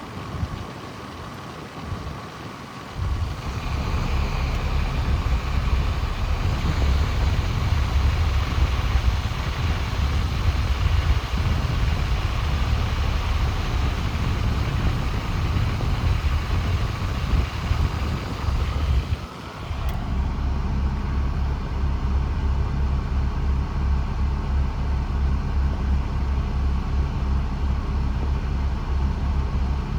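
Air from the Mercedes SLK32 AMG's climate-control vents rushing and buffeting against the microphone, starting up about three seconds in. Just before the two-thirds mark it dips briefly and comes back with less hiss and the low buffeting still strong.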